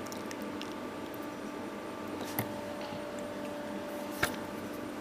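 Two small sharp clicks, about two and a half and four seconds in, as tools and parts touch the floppy drive's circuit board during hand soldering, over a steady electrical hum.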